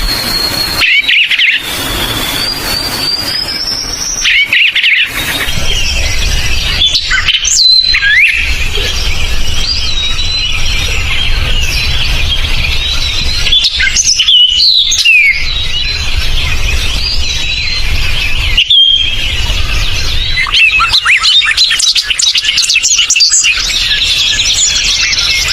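Forest songbirds chirping and singing: many quick overlapping chirps, trills and short whistled glides, with several birds calling at once near the end.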